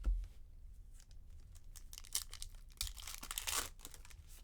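A baseball card pack's plastic wrapper being torn open and crinkled by hand, in short rustling bursts with a longer crinkle after about three seconds. A low thump comes right at the start.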